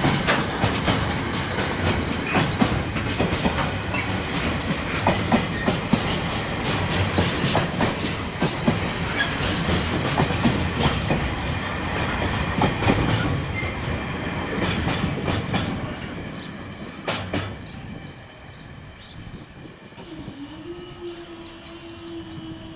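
Wheels of loaded container wagons on a long freight train clattering and clacking over the rail joints as the wagons pass close by. The noise fades once the end of the train has gone by, after a last sharp clank about 17 seconds in. A steady low hum starts near the end.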